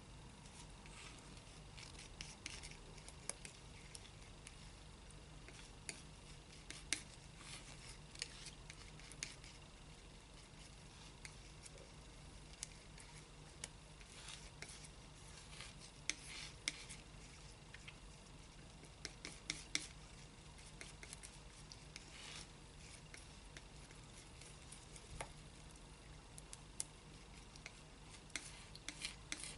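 Faint, irregular scrapes and clicks of a metal palette knife mixing thick paint on a palette, with a quicker run of short ticks near the end. A low steady hum lies underneath.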